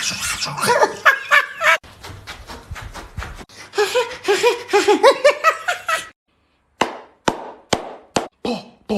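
A person laughing in quick repeated bursts, then after a short pause a run of sharp separate clicks, about two a second.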